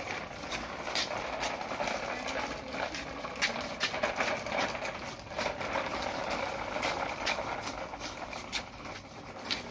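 Plastic toy dump truck being pushed over concrete paver tiles: its wheels rattle and scrape steadily, with many small clicks and knocks along the way.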